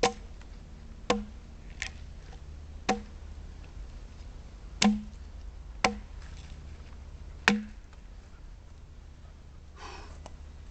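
Axe blows biting into soft white poplar as a log is hewn square by hand: seven sharp chopping strikes, irregularly spaced about a second apart, the last about seven and a half seconds in.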